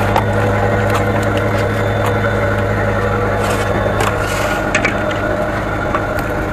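A fishing boat's engine running steadily, with scattered knocks and clatter over it.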